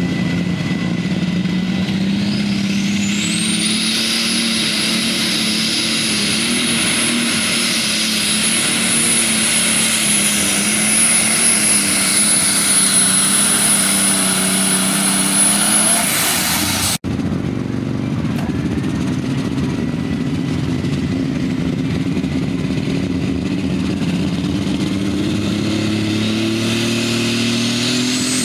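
Alcohol-burning super stock pulling tractor engine at full power under load. A high turbocharger whine rises over the first few seconds and holds to about 16 seconds in. After a sudden cut, a second super stock tractor's engine runs steadily, and its turbo whine climbs again as it launches near the end.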